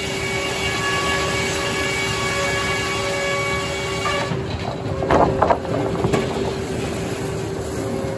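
Circular sawmill running with its blade in a poplar log, a steady machine tone under a high ringing whine that stops about four seconds in. A few loud knocks follow a second later.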